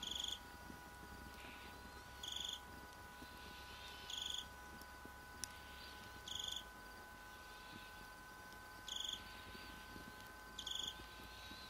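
A cricket chirping short trills about every two seconds over a steady thin whine.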